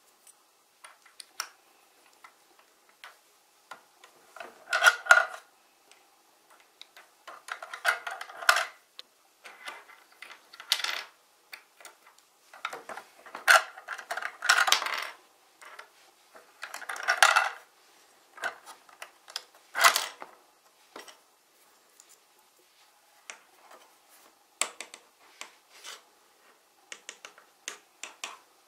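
Plastic building-block pieces from a Sluban Town toy truck set clicking and clattering as they are handled: minifigures and parts knocked and snapped together. There are several louder rattles every few seconds through the first two-thirds, then only scattered clicks.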